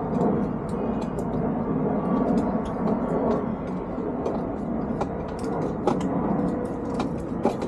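Light clicks and knocks of plastic parts and a dual air-horn unit being handled and test-fitted into a motorcycle's body, scattered over a steady low rumble.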